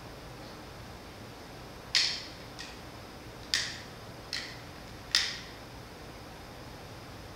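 Long-nosed butane utility lighter clicked five times as its igniter is pressed at a candle wick: sharp clicks, three louder and two softer, each with a short echo.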